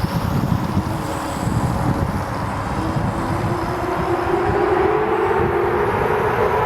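Wind buffeting the microphone with a heavy, unsteady rumble. A whine rises steadily in pitch and grows louder over the second half.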